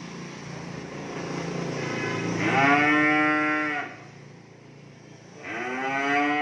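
Young beef cattle mooing: two long moos, the first about two and a half seconds in and lasting over a second, the second starting near the end.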